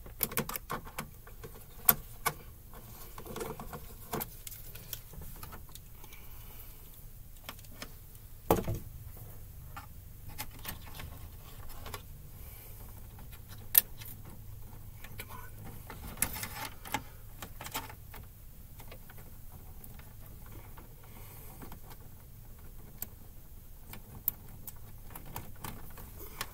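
Hands working wire into a metal breaker panel: scattered clicks, light rattles and rustling of wire against the sheet-metal box and breakers, with a few sharp knocks, the loudest about two seconds in, near nine seconds and near fourteen seconds. A faint steady low hum sits underneath.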